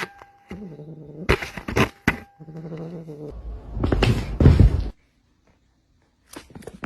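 A cat making two low, drawn-out yowls, with knocking noises between and after them.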